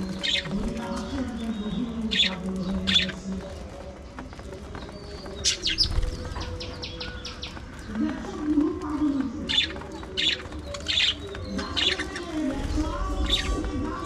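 Budgerigars chirping in a flock: short, sharp calls scattered throughout, with a quick run of chirps about five to six seconds in.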